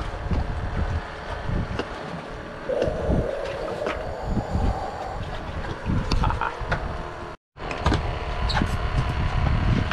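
Wind buffeting the microphone on an open boat, an uneven low rumble. It cuts out briefly about seven seconds in.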